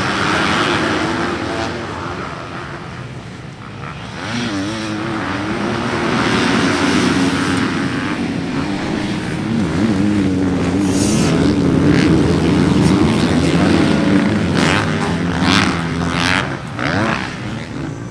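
Motocross dirt bike engines running and revving, the pitch rising and falling repeatedly as the bikes accelerate and back off.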